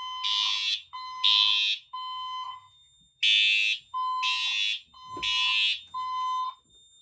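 Siemens and Edwards fire alarm notification appliances sounding in alarm, out of step with each other. A harsh buzzy horn and a clean single-tone signal each blast in groups of three half-second pulses with a pause between groups: the temporal-three evacuation code.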